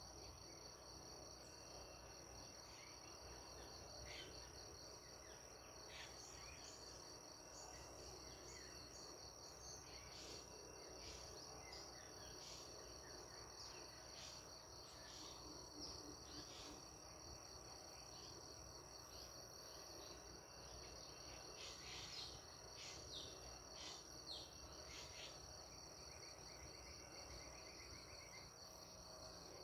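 Faint countryside ambience: crickets trilling steadily in a high, pulsing drone, with short scattered bird chirps over it, more of them from about ten seconds in.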